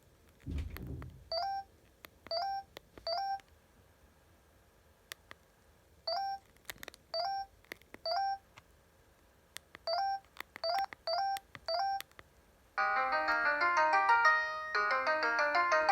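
Huawei U2800A phone: a soft handling thump, faint clicks and groups of short rising beeps, then about 13 seconds in a preloaded polyphonic ringtone begins playing, a bright, busy electronic melody.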